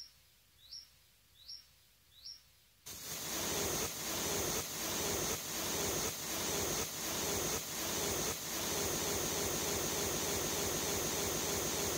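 Four short rising chirps, like a bird's calls, come about 0.8 s apart. About three seconds in, a loud, even rushing noise cuts in and holds, with a faint regular beat roughly every 0.7 s through its first part.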